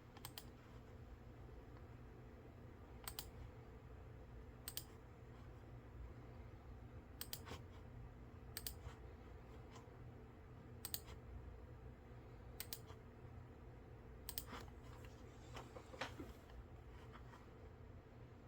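Computer mouse clicking in single, separate clicks at irregular intervals, roughly one every second or two, over a faint steady low hum.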